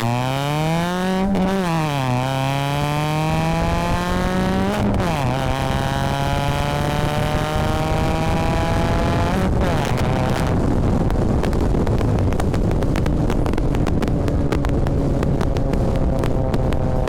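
Straight-piped Toyota 2AZ-FE four-cylinder accelerating hard at wide-open throttle. It revs up, drops in pitch at an upshift about a second in, revs up again and shifts again about five seconds in. It then climbs more slowly in a higher gear before settling into a steadier, gently falling note.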